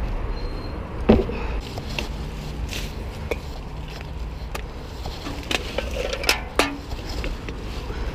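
Footsteps and rustling through leaf litter and shrubs, with irregular sharp clicks and knocks, the loudest about a second in.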